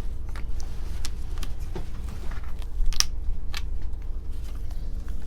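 Wooden jigsaw puzzle pieces being handled and pressed into a wooden puzzle board: scattered light clicks and taps, the sharpest about three seconds in, over a steady low hum.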